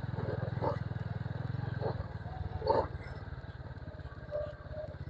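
Motorcycle engine running at low speed on a rough dirt track, its exhaust pulsing steadily; the engine gets quieter about two seconds in.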